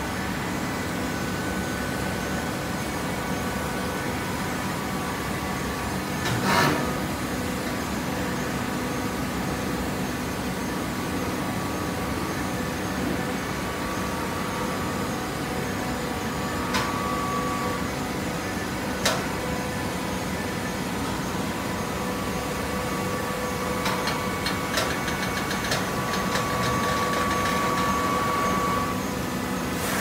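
Horizontal hydraulic baler running, its hydraulic power unit giving a steady hum with a whine that comes up twice, the second time louder for several seconds near the end. A few sharp metallic knocks, the loudest about six seconds in.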